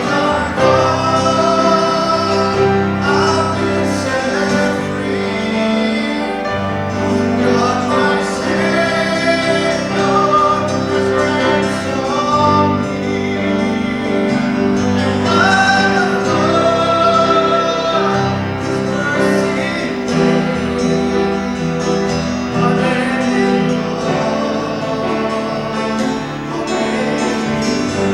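Worship song: voices singing over guitar and piano accompaniment in sustained phrases.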